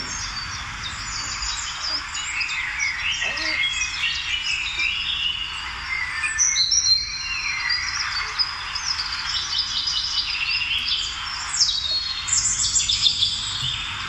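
Birds chirping and singing, many short high calls and whistles overlapping throughout, over a steady hiss.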